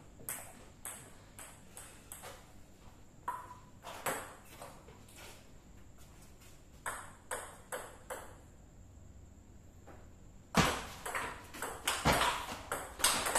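Table tennis ball clicking off the bats and the table in short series of hits with pauses between them; the loudest hits come in a fast rally over the last few seconds.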